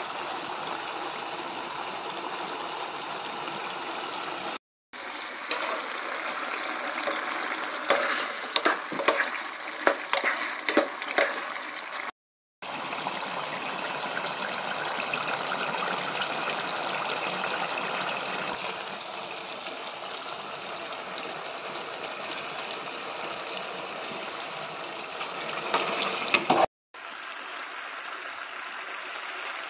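Duck curry sizzling and bubbling in a pot on a gas stove, in several takes broken by brief gaps of silence. In the middle stretch a utensil knocks sharply against the pot several times, and near the end water is poured into the curry.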